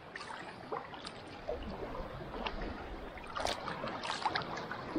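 Shallow seawater lapping and sloshing around a person standing in it, with small irregular splashes and trickles.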